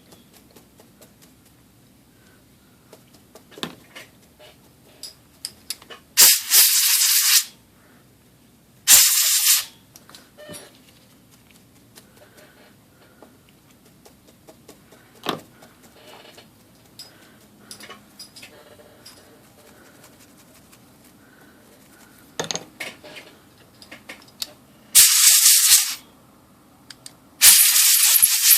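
Four short blasts of pressurised spray hissing, used to clean small typewriter motor parts. Light clicks and clinks of the parts being handled come between the blasts.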